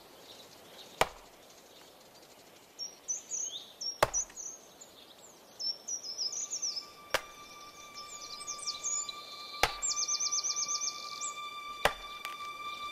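Birds chirping in runs of quick, falling high notes, broken by five sharp knocks spaced every two to three seconds. A steady music drone comes in about halfway through and grows louder near the end.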